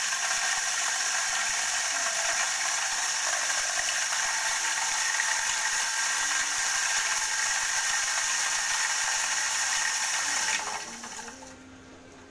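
Homemade corn grinder driven by a water-pump motor, running with a steady, harsh, high-pitched noise. About ten and a half seconds in it is switched off, and the sound dies away over a second or so.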